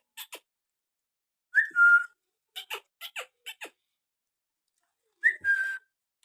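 Two short whistles, each a quick rising note that settles into a brief held tone, one about a second and a half in and one near the end, with a run of short quick clicks between them.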